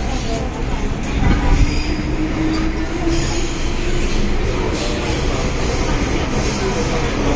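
MTR M-Train running through a tunnel, heard from inside the carriage: a steady rumble from the wheels and running gear, with a low whining tone from about a second in until about four and a half seconds.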